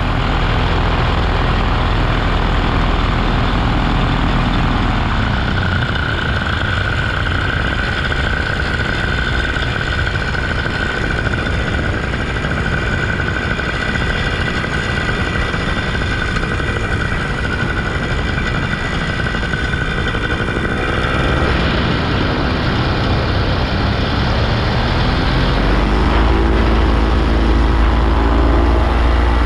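Engine running steadily, its pitch rising between about 22 and 26 seconds in and then holding higher.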